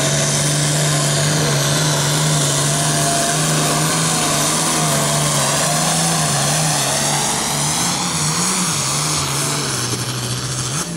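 Diesel pulling tractor's engine running hard at full throttle as it drags a weight-transfer sled, with a high whine over it. After about eight seconds the pitch wavers and falls as the tractor slows to a stop under the sled's load.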